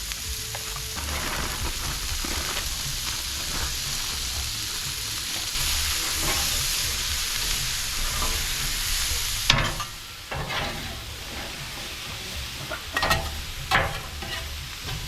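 Onions and broccoli sizzling in oil on a Blackstone flat-top griddle, with metal spatulas stirring and scraping across the steel. The sizzle swells in the middle and drops after a sharp clack about two-thirds through, followed by several quick spatula taps and scrapes.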